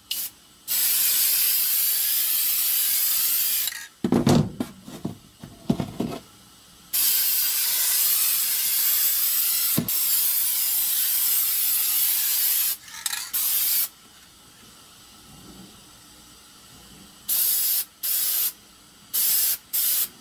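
Metallic gold enamel base coat being sprayed: two long steady hisses, a few seconds of uneven clattering between them, and a run of short spray bursts near the end.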